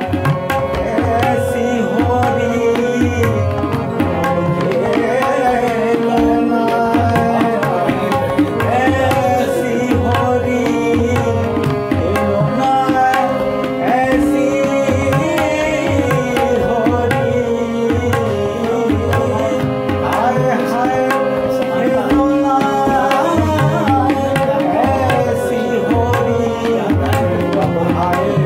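Harmonium and a man's singing voice performing a classical Kumauni Holi song in raag Jangla Kafi, with a hand drum keeping a steady rhythm underneath.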